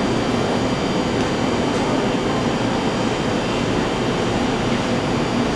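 Ventilation fan running with a steady, even rushing noise.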